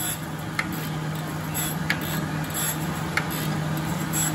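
Jones & Shipman Model 1400 surface grinder running, its wheel grinding steel discs under flood coolant as the table traverses back and forth. A steady hum and grinding hiss, with a light tick about every 1.3 seconds.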